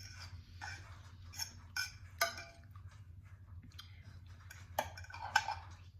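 Eating utensils clinking and tapping against a dish during a noodle meal: a few scattered sharp clicks over a faint steady hum.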